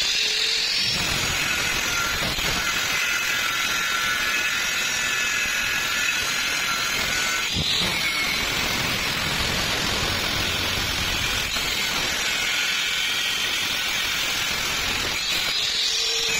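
Angle grinder running steadily under load, its disc grinding a weld bead down flush on thin steel square tube: a continuous grinding hiss with a wavering motor whine over it.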